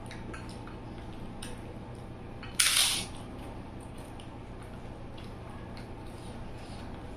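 A single loud, crisp crunch of a fried papad (papadum) about two and a half seconds in, among faint clicks of chewing.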